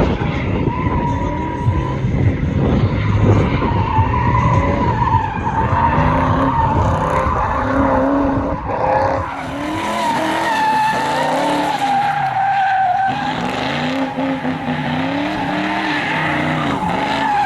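A car's tires squealing in a long, wavering screech while its engine revs up and down again and again, as in drifting.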